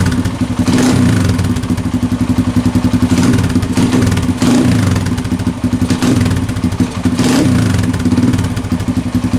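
Kawasaki KLX140's small single-cylinder four-stroke engine running just after a cold start with the choke turned off, its speed swelling several times. It is on the stock carburettor, which is known for hard starting and poor running on this model.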